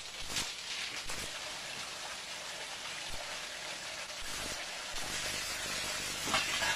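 Steady hissing noise, like rain or wind, with a few sharp crackles in the first second and one louder crackle near the end.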